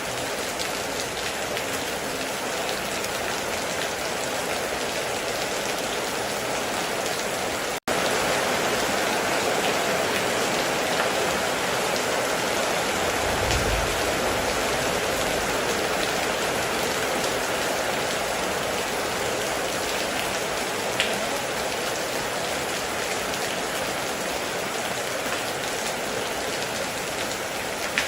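Heavy rain falling steadily on a metal roof, an even hiss and patter. It cuts out for an instant about eight seconds in and comes back a little louder, and a short low rumble sounds about halfway through.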